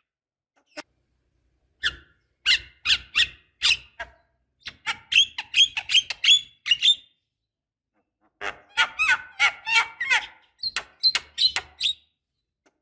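Javan myna calling: three runs of short, sharp squeaky notes, with brief pauses between them.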